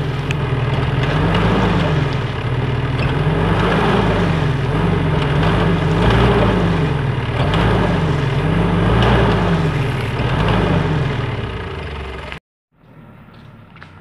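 Mitsubishi pickup engine running under load, revving up and down about every second and a half as the pickup, stuck with its underbody hung up in deep mud, tries to drive free. It cuts off abruptly near the end.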